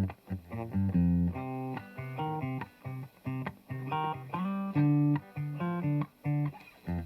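Yamaha Revstar electric guitar on a clean tone through its rear DiMarzio P90 Super Distortion pickup, playing a riff of short, separately plucked notes with brief gaps between them.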